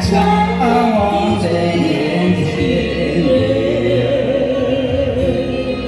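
Karaoke-style backing music with a voice singing over it.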